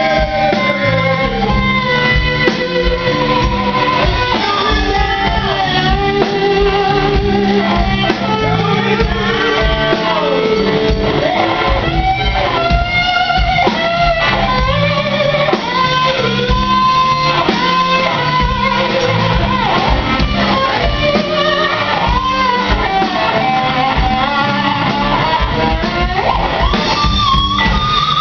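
Live band playing a loud jam: guitar and drums with a wavering melodic lead line over a busy low end.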